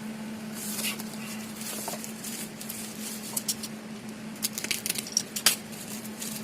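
Hands handling the camera's packaging during unboxing: scattered light clicks, taps and rustles of cardboard and plastic, coming thicker in the second half, over a steady low hum.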